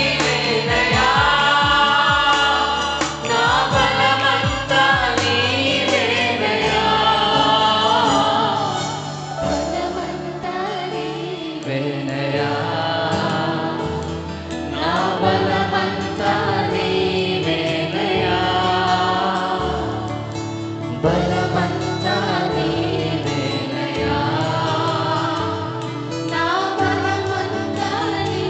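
Church worship team of men and women singing a Telugu Christian worship song together into microphones, over instrumental accompaniment.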